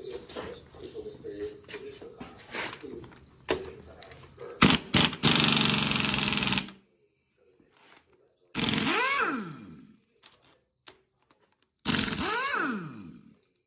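Power tool run in short bursts. First comes a two-second noisy burst with sharp hits. Then the motor is triggered twice, each time spinning up in pitch and winding back down, with silence between, typical of an impact wrench or drill working engine bolts. Faint clicks of tools and parts come before the bursts.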